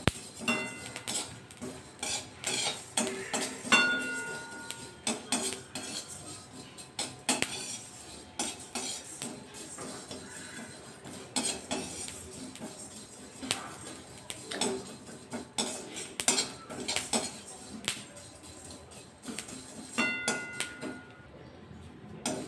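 Perforated metal spatula scraping and clinking against a dry metal kadai as whole coriander, fennel and cumin seeds are stirred while dry-roasting. The stirring strokes are irregular, and a few harder knocks set the pan ringing briefly.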